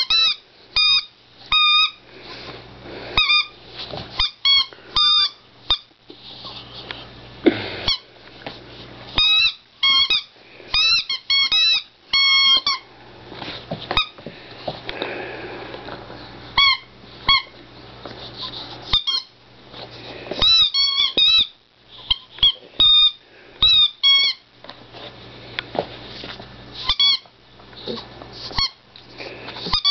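A puppy's blue pig squeaky toy squeaking over and over as he chews it, in quick clusters of short high squeaks separated by pauses of a few seconds.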